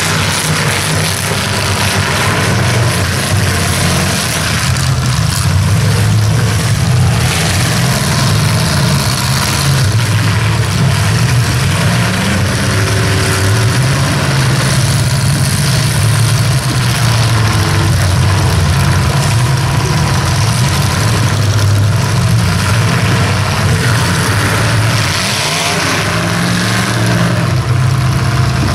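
Demolition derby cars' engines running and revving loudly, several at once, their pitch rising and falling.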